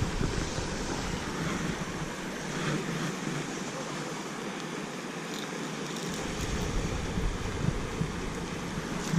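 Wind buffeting the camera microphone: a steady rush of noise whose low rumble dies down for a few seconds in the middle, then picks up again.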